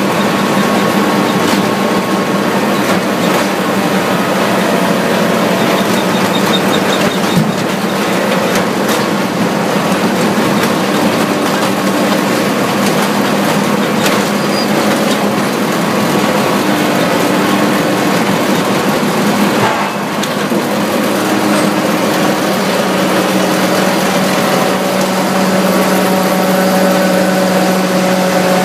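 Mobile CAMBIO 45 ring debarker running: a loud, steady machine drone with a constant hum, broken by a few sharp knocks.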